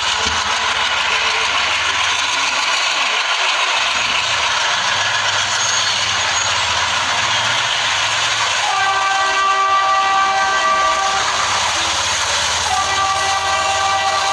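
Diesel locomotives hauling a passenger train, engines running loud with rolling noise. Then two long blasts of the multi-tone locomotive horn, the first about nine seconds in and the second near the end.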